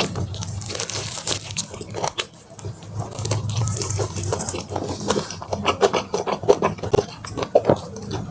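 Close-miked eating of crispy Korean fried chicken drumsticks: crunching of the fried coating and tearing of the meat, a quick, uneven run of crackles and crunches.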